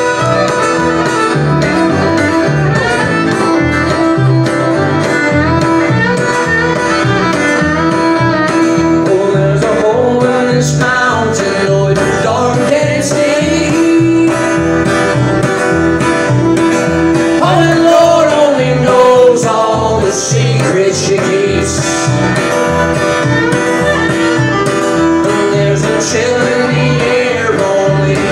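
Live acoustic guitar strummed in a steady rhythm with a fiddle playing over it, bluegrass-style country music through a phone's microphone at a concert.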